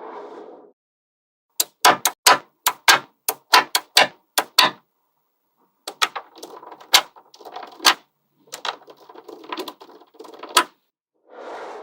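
Small neodymium magnetic balls snapping together with sharp clicks: a fast run of about a dozen clicks, then rattling as the balls shift and roll, with more clicks in between.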